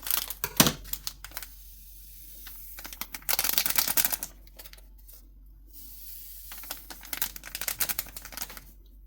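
Yeast sachets being torn open and handled: three bursts of quick crackling, rustling clicks with short pauses between.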